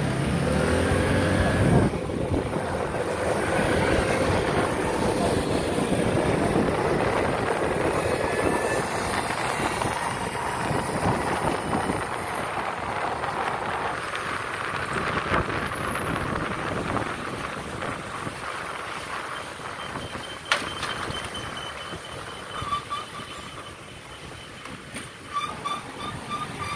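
City street traffic heard from an electric scooter: engines of surrounding scooters and cars with road and wind noise, louder during the first half and quieter later on. A few short high beeps sound near the end.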